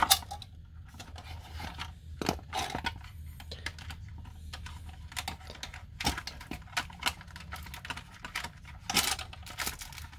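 Clicks, knocks and rattles of a plastic toy RC tank's hull being handled, as its battery compartment is worked open and the battery pack and its wire connector are pulled at by hand. The clicks are irregular, with the loudest just at the start and about nine seconds in.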